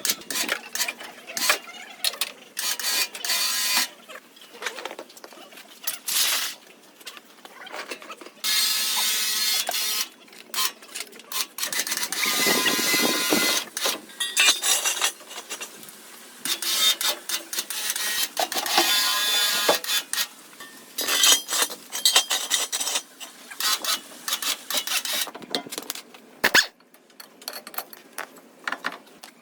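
Hands-on work with tools on the car: irregular clicks, knocks and scrapes, broken by several stretches of hissing, grinding-like noise a second or two long.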